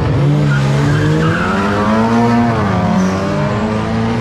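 Car engine accelerating hard from a drag-strip launch, its pitch climbing, dropping at a gear change about two and a half seconds in, then climbing again, with tyre squeal as the car launches.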